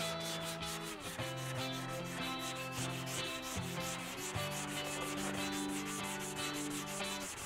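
A hand sanding block with 180-grit adhesive-backed sandpaper rubbed back and forth over body filler and epoxy primer on a Porsche 911 steel fender, in quick, even strokes. Background music of held chords plays underneath.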